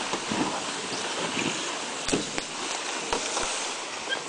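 Rustling and crunching of brush and moss as someone walks through boggy, fallen-timber forest, with wind on the microphone and a few sharp knocks.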